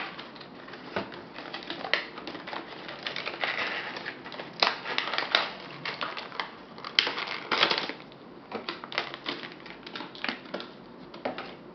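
Handling noise of a cable and its plastic packaging: irregular clicks and crinkling.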